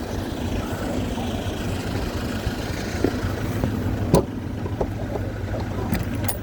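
Vehicle engine idling with a steady low rumble. A sharp knock about four seconds in, then a few lighter clicks near the end.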